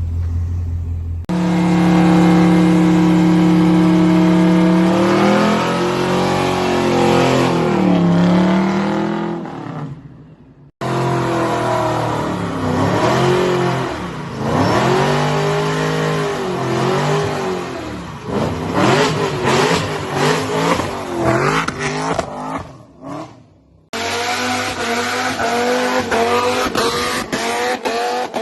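Car burnouts: engines held at high revs, then revved up and down over and over, with tires squealing and spinning against the pavement. It comes in several separate clips that cut abruptly from one to the next.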